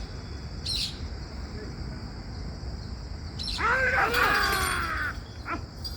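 Several voices calling out at once for a second or two past the middle, over steady insect chirping.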